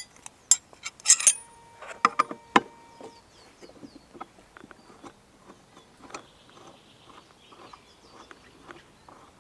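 Metal clinks and knocks of a 13 mm wrench working the blade bolt of an upturned electric lawn mower as the bolt is undone. One strike about two seconds in leaves a short metallic ring, and fainter taps and clicks follow.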